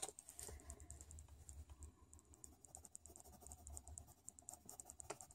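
Faint, quick strokes of a dark blue Polychromos coloured pencil scratching on paper, several light strokes a second, layering pencil over dried Inktense colour on a feather.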